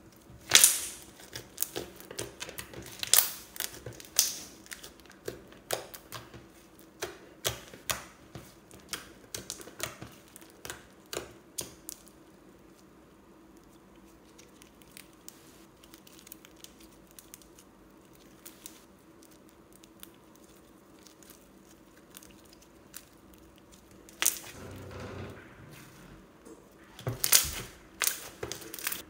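Glossy slime being squished, stretched and pressed by hand, giving sharp sticky clicks and pops. They come thick and fast for the first dozen seconds, go nearly quiet in the middle, and pick up again near the end.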